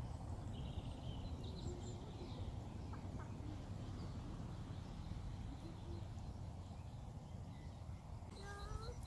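Outdoor ambience: a steady low rumble with faint bird chirps scattered through it. Near the end comes a short rising call, then a quick run of high chirps, about six a second.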